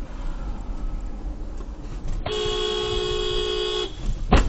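Car horn held for about a second and a half over the low rumble of a car's cabin at speed, as a truck pulls out in front. A loud sharp thump follows near the end.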